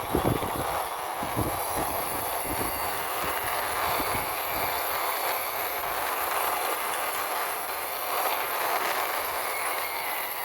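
Toy concrete mixer truck pushed along by hand, its plastic wheels rolling with a steady rattling rumble and a few knocks in the first couple of seconds.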